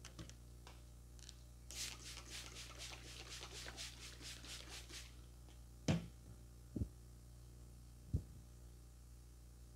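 Brisk rhythmic rubbing by the barber's hands, about four or five strokes a second for roughly three seconds. Three dull knocks follow about a second apart.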